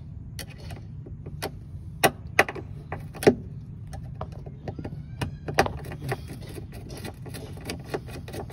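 Screwdriver turning out a Phillips-head screw from a washing machine's shift actuator mounting: irregular sharp metallic clicks and taps as the bit engages and slips on the screw head, the loudest a couple of seconds in.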